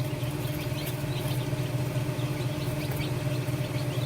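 Newly hatched chicks peeping: many short, high, falling chirps, over the steady hum of the incubator's machinery.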